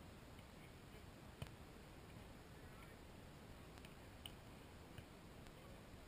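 Near-silent outdoor quiet broken by a few faint, sharp taps, the loudest about one and a half seconds in and smaller ones near the end: a volleyball being struck by hand during a beach volleyball rally.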